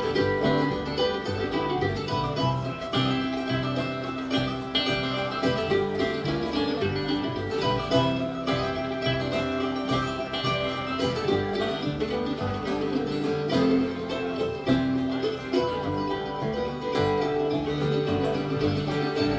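A bluegrass band playing an instrumental break, with banjo and guitar picking over a steady rhythm and a bowed fiddle line.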